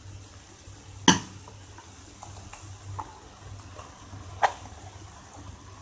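Metal utensil knocking twice against the pan, about three seconds apart, with faint scraping and small clinks in between as thick ground coconut paste is spooned onto cooked vegetables.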